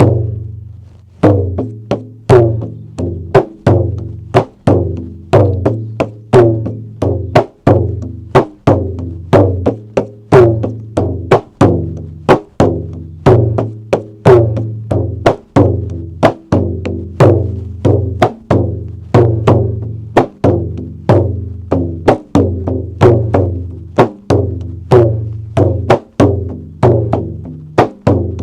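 Bodo Kham, a large traditional drum of wood with goat-skin and buffalo-leather heads, played in a steady rhythmic pattern. It gives sharp strokes about two to three a second over a deep, ringing low boom.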